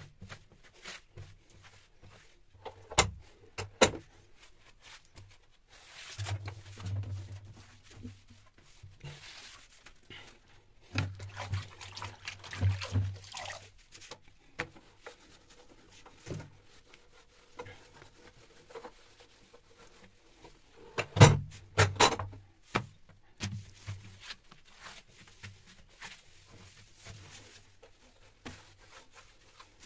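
Cloth rubbing and wiping over a glass-top gas stove and stone counter, in short scrubbing spells, with scattered knocks and clatters of things being handled; the loudest is a pair of knocks about three quarters of the way through.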